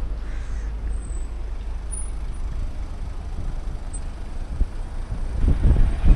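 Low rumble of cars idling while queued at a closed level crossing, with irregular low thumps growing louder near the end.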